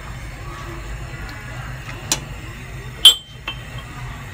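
Metal ladle clinking against a stainless steel pot while stirring coconut-milk fish gravy: a few sharp clinks, the loudest about three seconds in with a short metallic ring, over a steady low hum.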